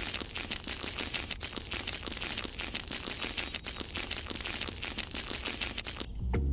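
Dense, gritty crunching and crackling of sand grinding under small plastic toy wheels, a fast run of fine clicks that stops about six seconds in, when music starts.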